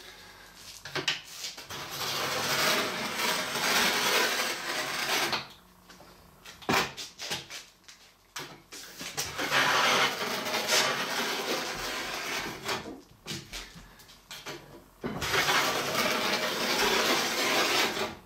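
Utility knife scoring a sheet of plexiglass, drawn along a straightedge: three long scraping passes of a few seconds each, with short pauses between, each pass cutting a little deeper into the sheet.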